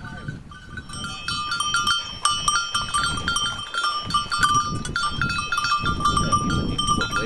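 Small bells on bird dogs' collars jingling again and again as English setters move about and are handled, with rough low noise under it.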